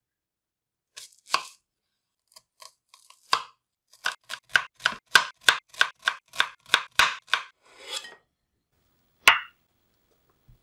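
Kitchen knife slicing a peeled onion on a wooden cutting board: a few separate cuts, then a steady run of chops about three a second, each stroke striking the board. A brief scrape follows, then a single sharp knock near the end.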